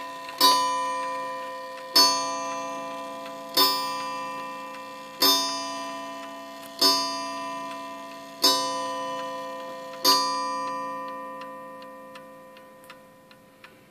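Seth Thomas Gothic beehive mantel clock with an 89AL time-and-strike movement striking on its coiled wire gong: seven strokes about a second and a half apart, each ringing and fading. After the last stroke the gong dies away and the movement's ticking is left.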